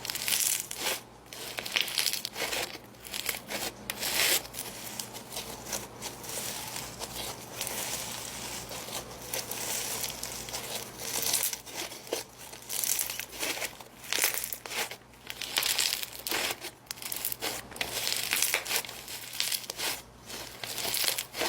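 Snow fizz slime being squeezed and worked by hand: a dense, irregular run of small crackles that goes on without a break.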